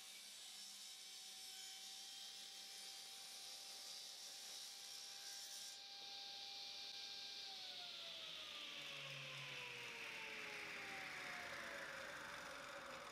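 Table saw with its blade tilted to 45° finishing a chamfer cut through a block of celery top pine. The cutting noise stops about six seconds in. A second or so later the saw is switched off, and its whine falls steadily as the blade winds down.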